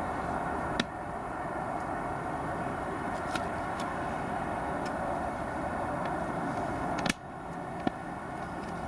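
A steady outdoor ambient drone and hiss, strongest in the middle range, picked up by a camcorder's microphone, with several sharp clicks. The loudest click comes about seven seconds in, and the drone dips briefly after it. It is the sound the uploader hears as an eerie choir-like humming or chanting.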